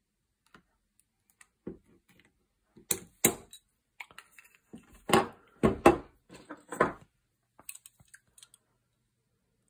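Metal parts of a shotgun action and a pair of pliers being handled: a run of clicks, clinks and knocks, loudest in the middle, as a coil spring is worked out of the action.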